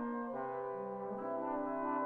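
Trombone ensemble playing sustained chords over a low held note. The chord changes about a third of a second in and again about a second in.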